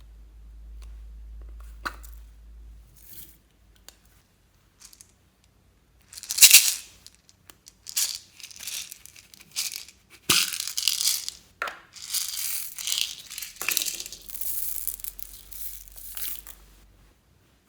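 Slime being worked by hand, giving crackling, tearing noises in irregular bursts, with a few sharp clicks before them.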